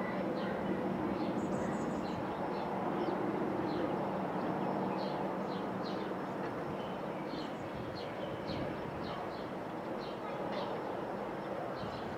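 Piston engine of a propeller-driven warbird droning steadily as it flies over. Short, high bird chirps come and go throughout.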